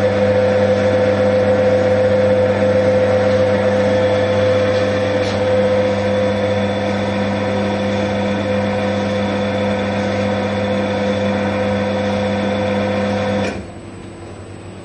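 QMAX NF-1 needle detector's conveyor belt and drive motor running steadily with a constant hum, the conveyor belt stage of the machine's automatic self-test. It stops abruptly near the end.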